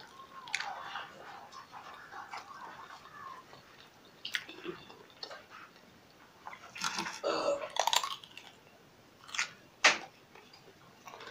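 Close-up eating sounds: chewing and crunching into raw red radish, with a few sharp crunches scattered through and the loudest cluster a little past the middle.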